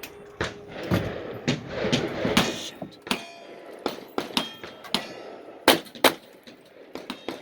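A string of sharp gunshots from cowboy action shooting, some followed by brief ringing of struck steel targets. The two loudest shots come about two-thirds of the way through, less than half a second apart.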